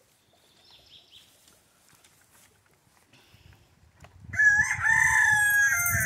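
A rooster crowing once, a long call in stepped pitch starting about four seconds in, after a few seconds of faint rustling.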